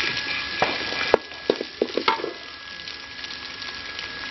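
Chopped onions and fresh curry leaves sizzling in hot oil in a metal wok, with a slotted metal spoon stirring. The spoon clicks and scrapes against the pan several times in the first couple of seconds. The sizzle is loudest in the first second, then settles to a quieter, steady hiss.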